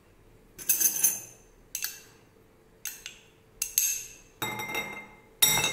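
A metal spoon clinking and scraping against glass bowls, a sharp ringing clink about once a second, as butter is scraped out of a small glass bowl onto boiled sweet corn.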